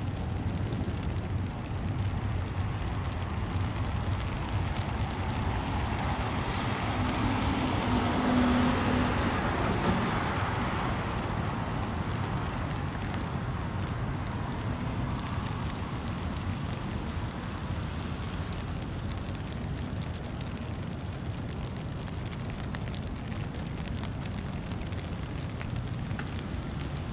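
Steady low rumble of city traffic. A vehicle passes about eight seconds in, swelling up and then fading away.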